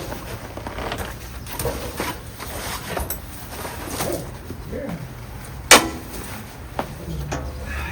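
Scattered clicks and knocks of handling work, with one sharp knock a little before six seconds in, over the low steady hum of an engine left running.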